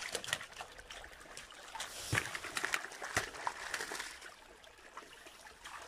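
Shallow water in a concrete channel splashing and trickling in small irregular splashes, with a couple of louder splashes about two and three seconds in.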